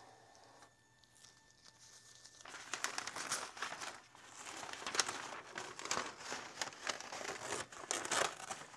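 Masking paper and tape being pulled off a car's painted trunk area and crumpled: an irregular crinkling, crackling rustle that starts about two and a half seconds in.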